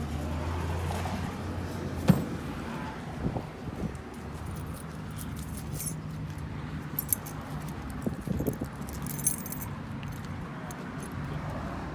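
SquareBody pickup's engine idling with a low steady hum, loudest in the first couple of seconds. Light metallic clinking and a sharp click about two seconds in.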